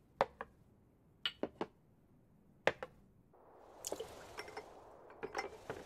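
Ceramic dishes and sake flasks clinking sharply a few times as they are gathered up. About three seconds in, a steady wash of water comes in, with splashes and knocks as ceramic sake flasks are set down into a wooden tub of water.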